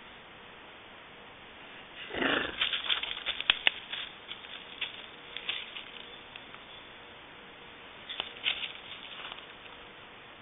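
Mountain lion moving off through forest undergrowth: a short sound falling in pitch about two seconds in, then a run of crackles and snaps of twigs and dry leaves underfoot, with another cluster near the end.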